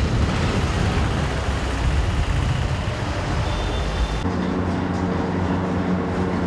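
Street traffic noise, a dense steady rumble, for about four seconds; then it cuts abruptly to a steady, even-pitched machine hum of a commercial kitchen.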